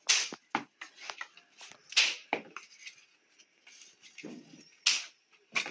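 Sharp wooden knocks and clacks as thin wooden door shims are handled at the frame, three loudest strikes roughly two seconds apart with lighter clicks between.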